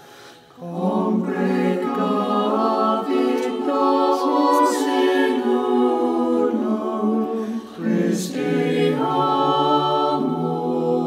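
Choir singing unaccompanied in several parts. A new phrase begins about half a second in, with a short break for breath around eight seconds in.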